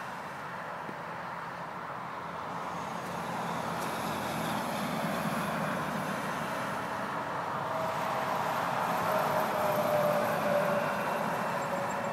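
Highway traffic: a steady rush of tyre and engine noise that swells as a vehicle passes, loudest about nine to eleven seconds in, with a faint whine that sinks slightly in pitch as it goes by.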